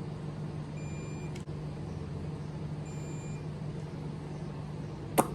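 Steady low mechanical hum, with two faint short beeps early on and a single sharp click about five seconds in.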